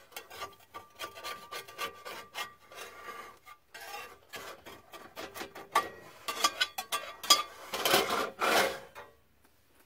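Metal spatula scraping the inside of a cast iron skillet in quick repeated rasping strokes, working loose stuck-on egg crumbs; the strokes grow louder near the end and stop about a second before it.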